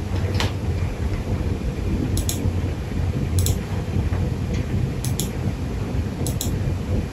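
Steady low room hum with about five brief, light taps scattered through it.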